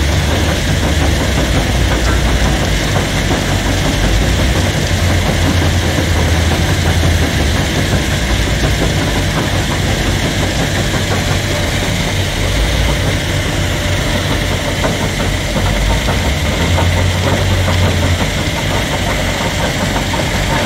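Heavy diesel machinery running steadily with a deep, continuous rumble: a wheel loader's engine working as it loads the tipper truck, over other diesel engines running.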